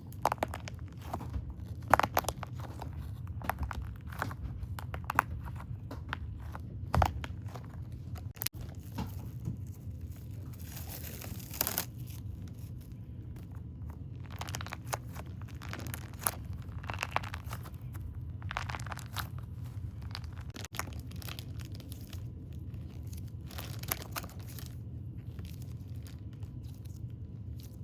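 Hands handling something crinkly: irregular crackles, crinkles and short tearing noises, some louder snaps in the first few seconds, over a steady low hum.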